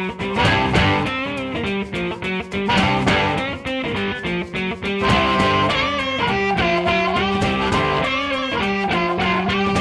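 Guitar-led background music playing steadily.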